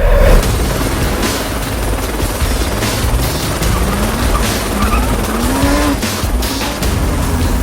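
Helicopter rotor noise and a car engine revving in repeated rising sweeps, over background music.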